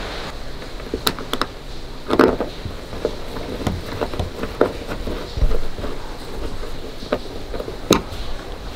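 Scattered light clicks and knocks of hands working on a camper van's curtain rail fittings: the plastic end cap and screws being put back into the rail.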